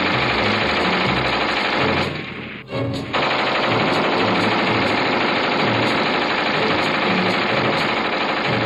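Sustained light machine-gun fire mixed with rifle shots, loud and nearly continuous, with a brief drop in the firing about two seconds in.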